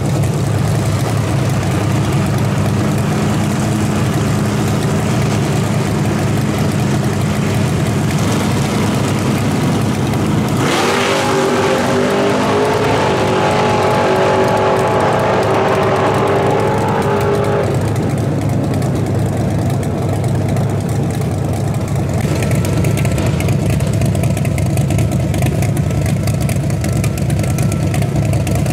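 Drag car engine rumbling loudly at idle on the start line, then launching at full throttle about ten seconds in, its note climbing hard for about seven seconds as it pulls away down the strip. A lower engine rumble carries on afterwards.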